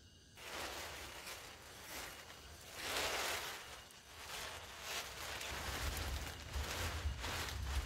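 Clear plastic sheet rustling and crinkling as it is lifted and spread over a pole shelter roof, with a loud swish about three seconds in and crackling through the second half. A low rumble runs underneath from about halfway through.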